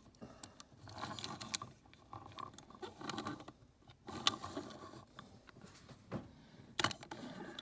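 Small die-cast Hot Wheels Chevy Blazer toy cars being handled and moved on a tabletop: scattered light clicks and scrapes, with a sharper click about seven seconds in.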